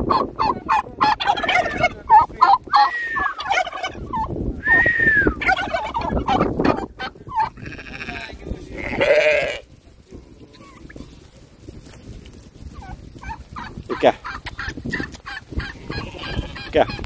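Domestic turkeys gobbling and calling repeatedly through the first half. A sheep bleats once about nine seconds in. After that it is quieter, with only scattered faint sounds.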